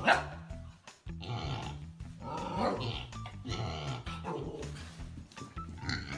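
A dog growling and barking, with one sharp, loud bark right at the start, over background music.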